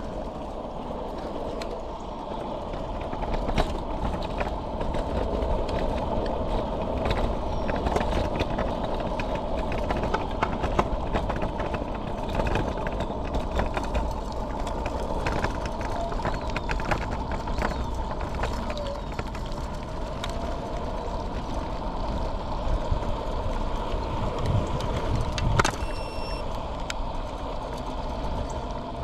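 Electric scooter ridden at speed: a steady motor whine over tyre and road noise, with wind buffeting the microphone and frequent small rattles and knocks over the bumps. Near the end a brief high ringing ping.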